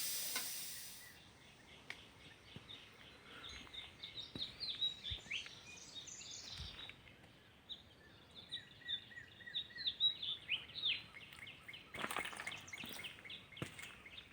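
Small birds chirping in quick runs of short, high chirps. A hiss fades out in the first second, and a few faint knocks come near the end.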